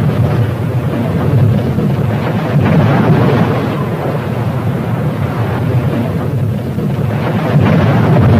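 Loud, continuous low rumble of a passenger train crashing at high speed into a heavy steel container on the track and ploughing on through the wreckage. The noise swells a little about three seconds in and again near the end.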